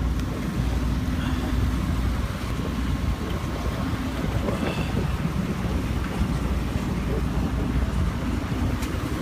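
Wind buffeting the microphone aboard a sailboat under way: a steady low rumble, with wave and water noise beneath it.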